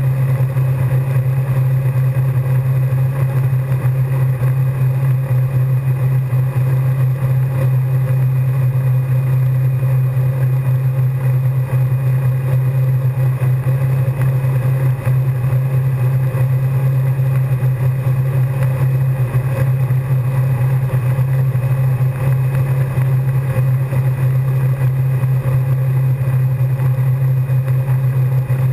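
Steady low drone of a wake boat's engine running at constant speed under way, with water rushing.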